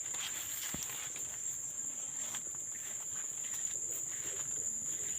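Insects, crickets or similar, holding one steady high-pitched drone, with faint scattered rustles beneath it.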